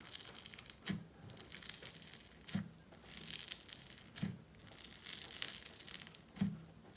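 Slime being squeezed and pressed by hand, crackling and popping continuously, with four soft pushes about every second and a half.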